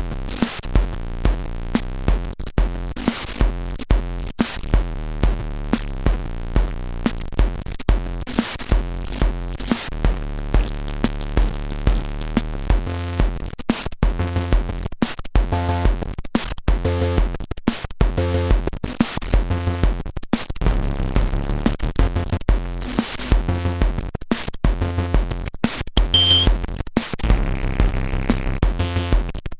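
Korg Monotribe analog groovebox played live through a Korg Kaoss Pad effects unit: a steady drum-machine kick about two beats a second under a synth bass line, with a repeating higher synth note pattern coming in about halfway.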